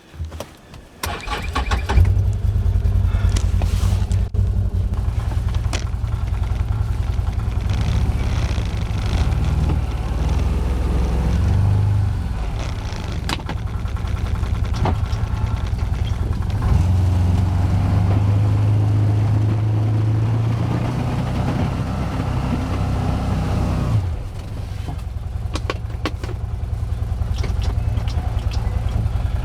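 Can-Am Commander 1000 XT side-by-side's Rotax V-twin engine starting up and then running, its note rising and falling as the machine works plowing snow. The engine drops to a lower note about 24 seconds in.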